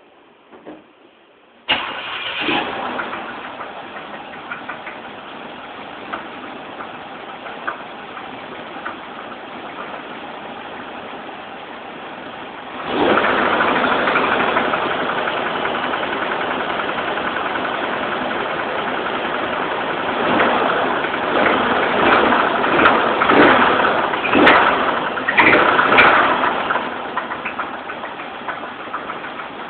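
Chevrolet Monte Carlo engine starting up under two seconds in and running with a knock, which the owner suspects is a bent pushrod. About halfway through it gets suddenly louder, with several louder surges before it eases back near the end.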